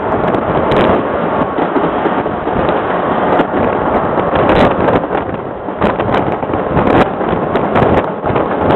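Bernina Express train running along the track, heard from a carriage window with wind rushing over the microphone, and irregular clicks and knocks throughout.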